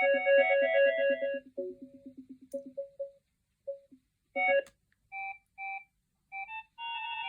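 Synthesized ringtone melodies from a Huawei ETS3023 fixed wireless desk phone's speaker. A pulsing electronic tune ends about three seconds in. After a short pause and a sharp click, a different ringtone starts with short, evenly spaced notes.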